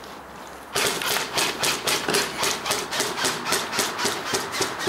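Booted footsteps of several people crunching and scuffing on a gritty concrete floor. They start suddenly about a second in, then keep a quick, even beat of roughly five steps a second, the nearest ones loud and close.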